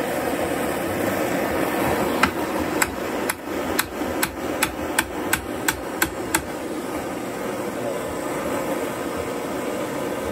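A hammer strikes a torch-heated nail about a dozen times in quick succession, bending it over the foot of an anvil. The blows come from about two seconds in to about six seconds in, against the steady hiss of a hand-held propane torch flame.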